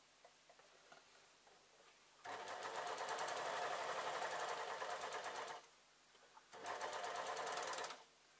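Overlocker (serger) running at speed, stitching along the edge of a lightweight linen strip. It runs for about three seconds, stops for a second, then runs again briefly.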